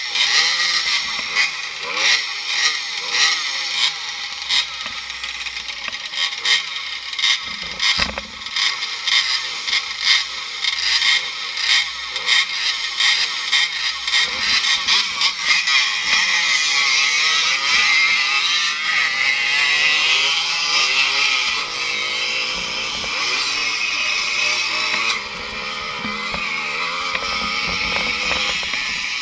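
Small two-stroke motorcycle engines revving in short repeated bursts at a race start, then running continuously from about halfway, the pitch climbing and dropping as one is ridden along a grass track.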